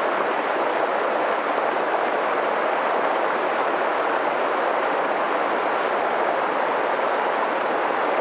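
Mountain stream rushing and splashing, a steady, even noise.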